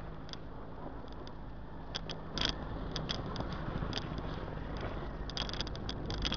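Car driving slowly on a dirt road: its engine running low under road noise, with frequent short clicks and rattles. The noise grows louder about two seconds in.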